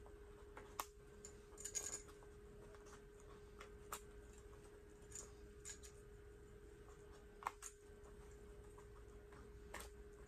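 Faint clicks and taps of gold Happy Planner disc rings being pressed one at a time into the punched edge of a chipboard cover: about seven scattered clicks, a few close together near the start, over a steady faint hum.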